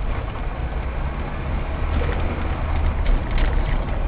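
Steady low rumble of a car's engine and tyres on the road, picked up inside the cabin by a dash camera's microphone.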